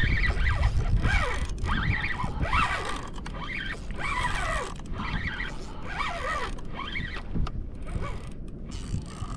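Spinning fishing reel being cranked, its gears giving a whine that rises and falls over and over with the handle turns.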